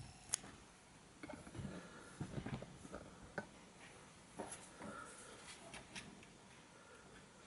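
Faint scattered clicks and light handling noises: a metal driver bit and fingers working at the spring-loaded carbon brush holders in the opened motor housing of a Hilti TE6 rotary hammer. A sharp click about a third of a second in is the loudest.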